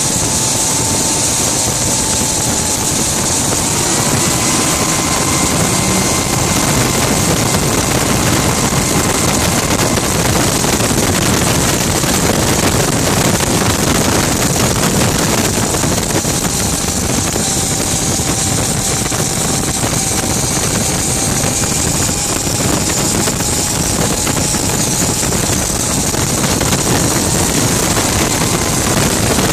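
Kerosene-burning gas turbine of a Rover Jet 1 recreation running at speed, a high thin whine over a heavy rush of wind in the open cockpit. The whine rises in pitch about four seconds in and falls back a little around sixteen seconds.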